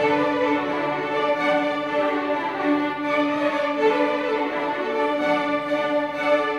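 Youth string orchestra of violins, violas, cellos and double basses playing live, mostly long held notes.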